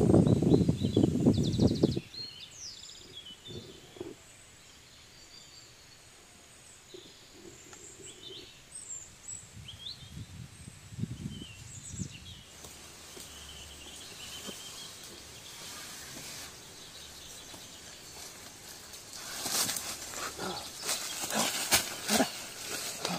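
A loud rough rustling noise that cuts off about two seconds in, then quiet forest with scattered small bird chirps. Near the end, dry leaves and twigs crackle and crunch as a man comes down the tree onto the leaf litter.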